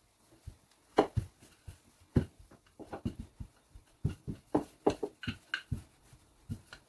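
Wooden rolling pin rolling out shortcrust pastry on a floured stone countertop: a run of irregular knocks and thuds, about one or two a second.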